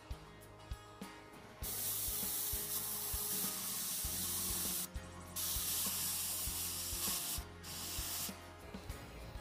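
Gravity-feed airbrush spraying paint in three hissing bursts: a long one starting about one and a half seconds in, a second of about two seconds, and a short last one. Background music with a steady beat plays underneath.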